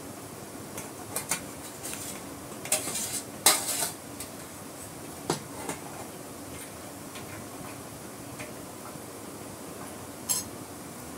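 Metal utensil clinking and scraping against a stainless steel cooking pot: a quick run of knocks in the first few seconds, the loudest about three and a half seconds in, then a few light clinks further apart.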